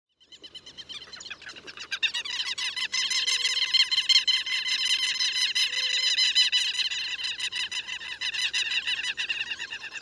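Southern lapwings calling in a territorial display: a rapid, unbroken series of repeated notes, many a second. It fades in over the first two seconds, then stays loud.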